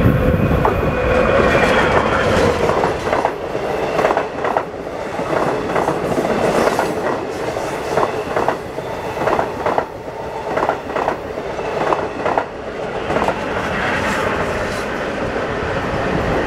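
A Long Island Rail Road diesel push-pull train passes close by: EMD DM30AC locomotives with Kawasaki C3 bilevel coaches. It makes a steady rumble, and its wheels clack irregularly over the rail joints. An M7 electric multiple-unit train runs on a farther track at the same time.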